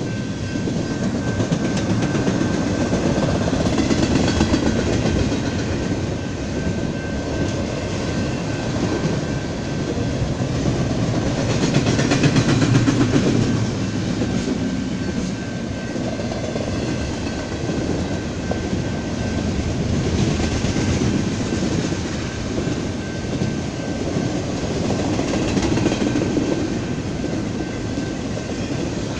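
Freight train of double-stack container cars rolling past at track side: steel wheels running on the rails in a continuous rumble and clatter that swells and eases as the cars go by, loudest about twelve seconds in. A faint steady high whine sits over it.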